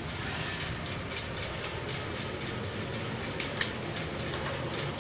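Small electric motor and plastic gears of a remote-control toy running steadily with a fast rattle, and one sharp click about three and a half seconds in.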